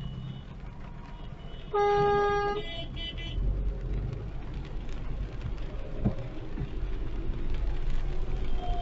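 A car horn honks once for just under a second, about two seconds in, over the steady low rumble of driving in heavy rain.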